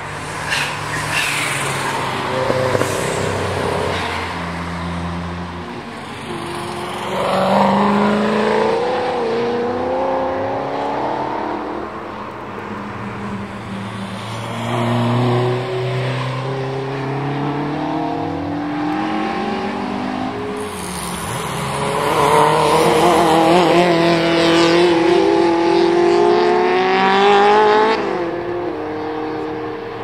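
Several track cars passing one after another at speed, their engines revving hard, the engine notes climbing and falling as they go by. The loudest pass comes in the last third.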